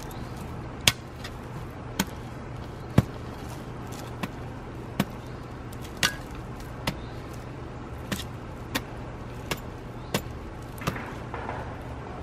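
Small hand hoe chopping into red clay soil and bark mulch: sharp strikes about once a second, over a steady low background hum.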